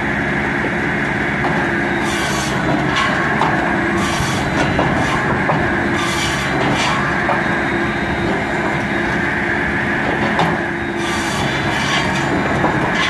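Tractor-driven AMR Solomat Auto automatic firewood circular saw running with a steady mechanical drone. Short high rasping bursts come roughly every two seconds as the blade cuts through logs, with a pause of a few seconds past the middle.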